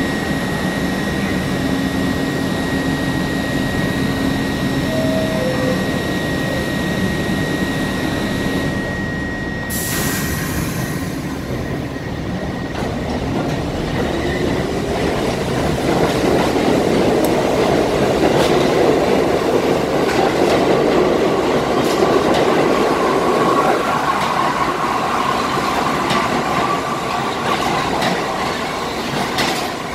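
New York City subway train with stainless-steel cars standing at the platform with a steady high whine. About ten seconds in there is a short hiss, then it pulls out: a whine rises in pitch and the running noise grows louder as it gathers speed past the platform, easing off near the end.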